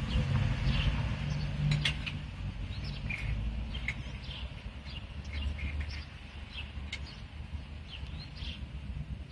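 Outdoor ambience: a steady low rumble of distant traffic, with small birds chirping in short, scattered calls throughout.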